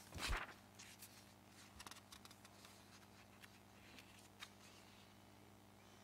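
Paper rustling and small handling clicks picked up by a table microphone, with one short, louder rustle just under half a second in, then a quick run of faint clicks around two seconds in and scattered soft rustles after.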